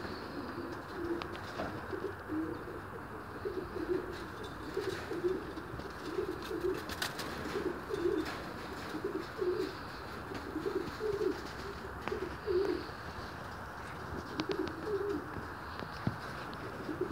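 Domestic pigeons of the Polish Brodawczak breed cooing, a low warbling coo repeated every second or so.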